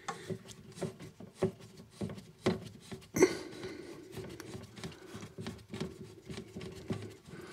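Small metallic clicks and scrapes of water pump pliers and fingers working the brass nut on a cold-water flexi tap connector as it is undone, with one sharper click about three seconds in.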